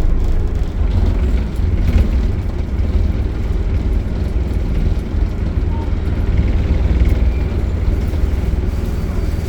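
Optare Solo single-decker bus with Allison automatic gearbox running, a steady low rumble.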